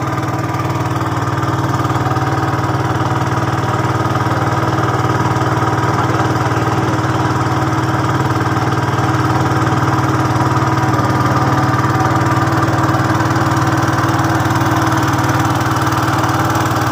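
Motor of a small wooden river boat running steadily while under way, a constant drone that gets slightly louder in the first couple of seconds and then holds even.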